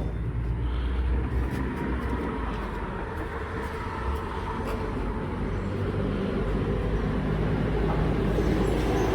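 A vehicle engine running steadily with a low rumble, growing slightly louder toward the end.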